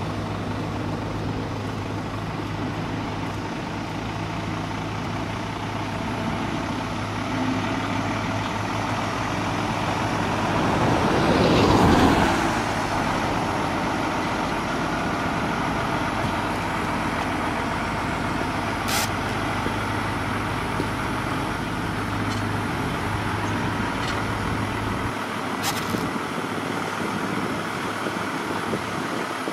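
Heavy tractor unit's diesel engine running slowly with a steady low hum while it tows a Shinkansen car on a low trailer. About twelve seconds in, another vehicle passes close, swelling up and fading with a falling pitch; this is the loudest moment. A couple of short sharp sounds come later, and the low hum drops away near the end.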